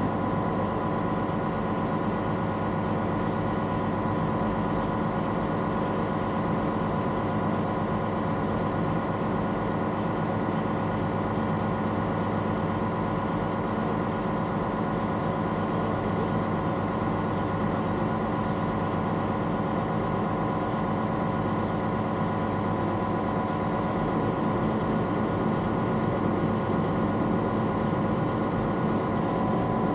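Heavy diesel engine idling steadily, a constant low rumble with a steady hum over it.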